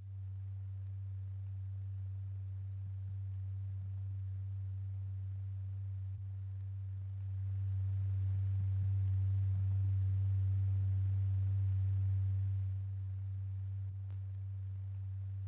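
A steady low pure tone, a sine wave of roughly 90–100 Hz, as used to vibrate a powder-strewn diaphragm in a cymatics experiment. It swells louder about halfway through and drops back a few seconds before the end.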